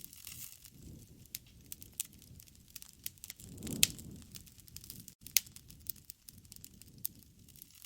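Wood fire crackling, with irregular sharp pops and snaps over a low rumble, one louder pop a little under four seconds in.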